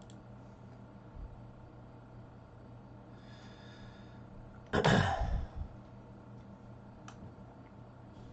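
A person's loud sigh-like exhale close to the microphone about five seconds in, over a steady low electrical hum. A single mouse click follows about two seconds later.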